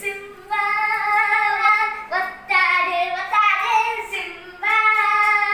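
A child's singing voice, high and clear, holding long notes in four short phrases with brief breaks between them.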